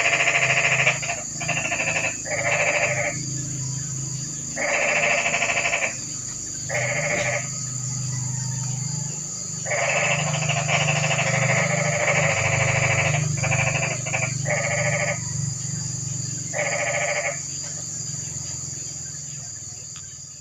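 Frogs calling after rain at night: repeated bouts of rapid, pulsed croaking, each bout about half a second to a second and a half long, over a steady high-pitched insect drone and a low steady hum. Everything fades out near the end.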